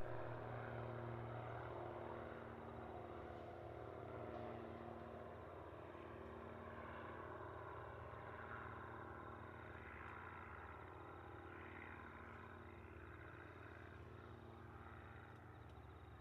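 Faint, distant aircraft engine drone: a low steady hum that slowly fades over the first half.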